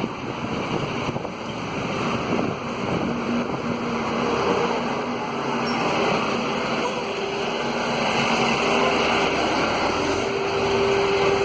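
Steady outdoor street noise, a rushing hiss with a faint steady hum that shifts higher about seven seconds in.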